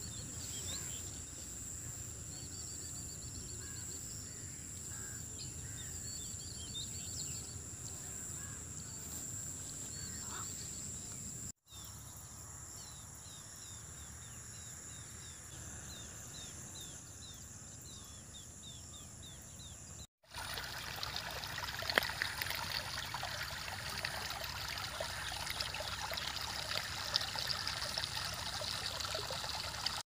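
Outdoor ambience in three cuts: small birds chirping over a steady high whine, then a run of short repeated bird chirps, and from about two-thirds of the way through, a shallow stream running over rocks.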